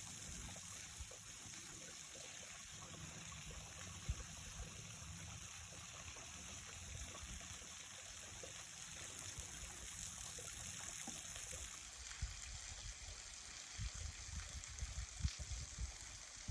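Flowing water, a faint steady rushing, with irregular low rumbles and thumps on the microphone.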